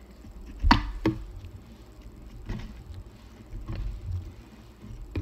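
Two sharp knocks about a second in, then a few fainter taps, as small pieces of cut ginger and lemon are dropped into a plastic water bottle and picked up from a cutting board.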